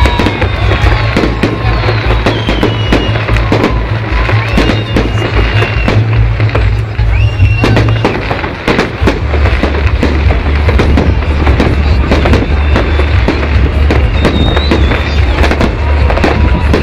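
Fireworks display: a rapid, continuous string of bangs and crackles over loud music with a heavy bass line.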